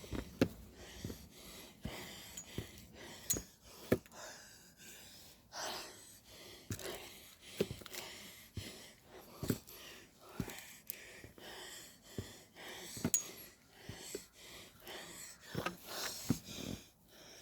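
A hiker breathing hard while climbing mountain steps, with footfalls knocking every second or less.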